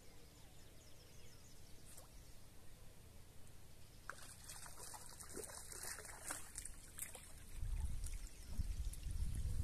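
Faint water trickling and splashing with scattered small clicks, then a low rumble from about eight seconds in.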